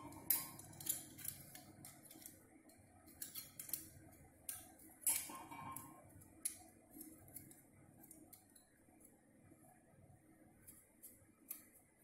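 Irregular small metal clicks and taps from a 12 V DC motor being handled and pushed into a metal motor clamp. They come thick through the first half, the loudest about five seconds in with a brief ring, then thin out to a few faint ticks near the end.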